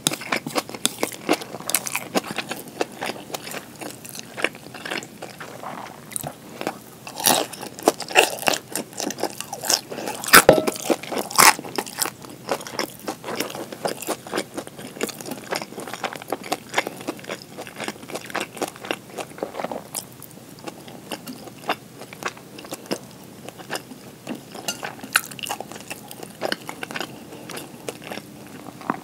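Close-miked mouth sounds of a person eating gyoza and tuna kimchi: chewing and biting with many wet crunches and clicks. They come thickly in the first half and more sparsely in the second.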